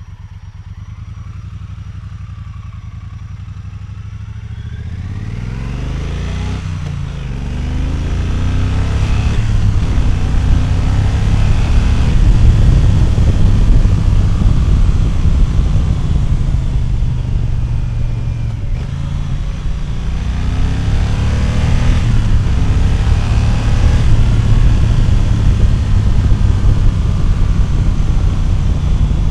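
Triumph Thunderbird 1600cc parallel-twin motorcycle engine, running low and steady at first, then accelerating hard from about five seconds in. Its pitch climbs and drops back several times as it pulls through the gears, and it stays loud after that.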